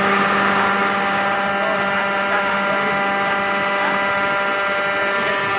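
Vertical hydraulic baling press running, its pump motor giving a steady hum and whine made of several even tones.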